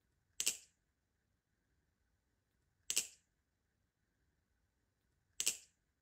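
Teal Krake Raken balisong trainer's handles clacking together as the knife is flipped: a quick double metal click three times, about every two and a half seconds, as the trick repeats.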